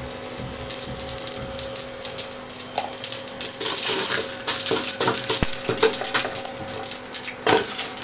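Cumin seeds frying in hot oil in a steel kadai for a dal tadka, sizzling and crackling, the crackle building from about three seconds in. A steady hum runs underneath in the first half.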